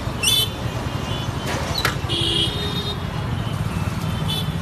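Busy street traffic: scooter and motorbike engines running as they pass through a walking crowd, with a few short horn beeps. The longest beep comes about two seconds in.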